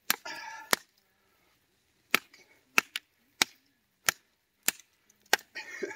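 Cold Steel Jimislash competition chopper, a heavy chopping knife, striking a post oak round to split off kindling: about seven sharp chops, roughly one every two-thirds of a second.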